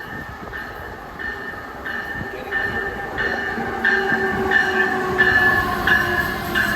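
Passenger train approaching on the rails, growing steadily louder, with a ringing tone that repeats about every two-thirds of a second.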